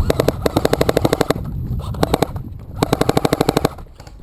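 Airsoft gun firing full-auto: rapid, evenly spaced shots in three bursts, a long one at the start, a short one about two seconds in and another of about a second near the end.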